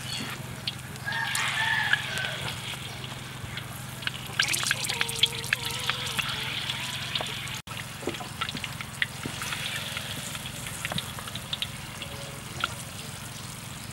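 Hot oil in a wok sizzling steadily as battered frog pieces and green vegetables deep-fry, with many sharp crackles and pops of spattering oil, busiest about four to five seconds in.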